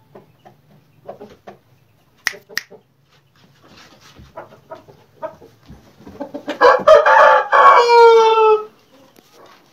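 Aseel rooster crowing once, about six and a half seconds in: a harsh start that settles into a long held note, falling slightly before it cuts off. Soft clucking and two sharp clicks come before the crow.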